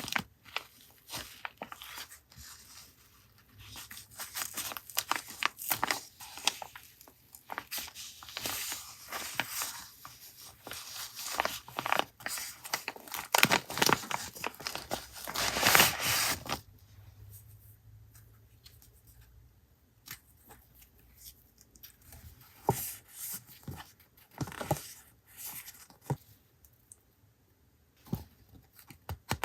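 Paper packaging being torn and crinkled by hand, in irregular rustles and rips, loudest in a long tearing stretch about halfway through, then quieter handling with scattered taps and crinkles.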